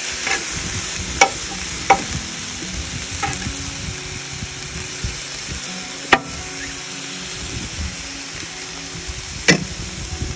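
Vegetables sizzling on a steel Blackstone griddle as a metal spatula stirs and turns them, with several sharp clacks and scrapes of the spatula against the griddle plate, the loudest about six seconds in and near the end.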